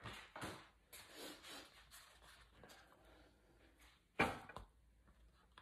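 Cardboard puzzle box and picture pieces handled close to a phone's microphone: rubbing and scuffing, with one louder knock about four seconds in.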